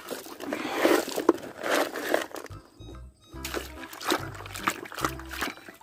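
Water splashing and sloshing as a hand swishes a toy about in a shallow muddy puddle. Background music with a steady bass beat comes in about halfway through.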